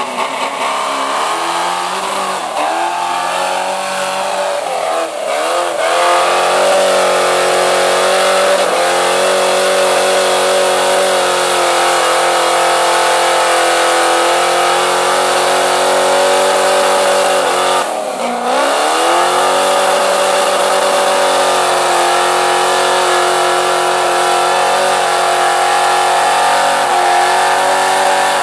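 Engine of a lifted mud truck on tractor tires, held at high revs while it plows through a deep mud pit. The revs drop and surge back up a few times, most deeply about two-thirds of the way through.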